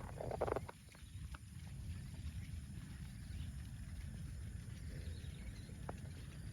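Cow giving a short, broken grunt-like call in the first half-second, then a low steady rumble with a few faint clicks.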